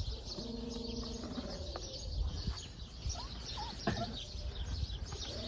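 Faint whines and short whimpers from young podenco puppies hiding under a board, including one held whine about a second long early on, with small birds chirping in the background.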